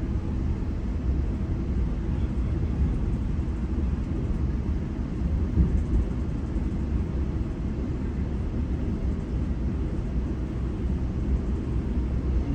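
Steady low rumble of a GO Transit commuter train running at speed between stations, heard from inside the passenger car, with a brief bump about halfway through.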